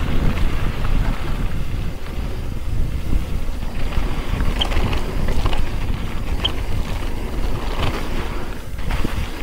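Wind rushing over the camera microphone and mountain bike tyres rolling over a dirt and gravel singletrack on a fast descent, with a few short clicks and rattles from the bike in the middle.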